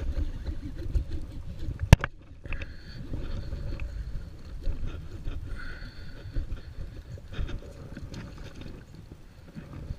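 Low rumbling noise from the kayak and the rod being handled while a bass is played on rod and reel, with one sharp knock about two seconds in.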